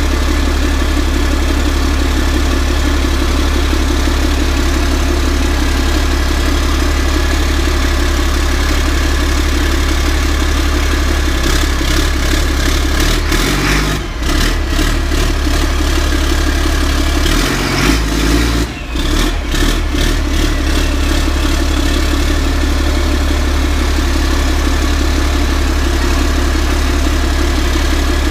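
Caterpillar 3126 inline-six diesel idling steadily. Twice, around the middle, its note shifts and dips briefly as the engine takes load when the truck is put in gear and moved.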